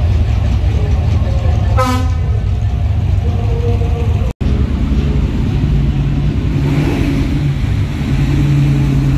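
Low engine rumble of a slow-moving vintage lorry and passing cars, with one short horn toot about two seconds in. The sound cuts out for an instant about four seconds in, then a car engine runs steadily.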